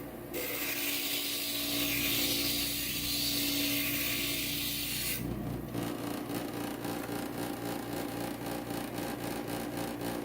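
Inland stained glass grinder running, with a piece of glass pressed against its grinding bit: a gritty hiss over the motor's steady hum for about five seconds, then lighter grinding contact with the motor still running.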